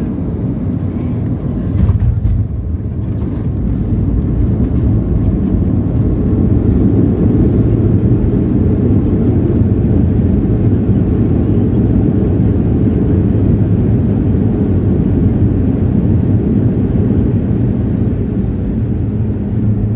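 Boeing 737-700 engine and airflow noise heard from inside the aircraft during the landing, a steady low rumble. A brief thump comes about two seconds in, then the noise builds over the next few seconds and holds.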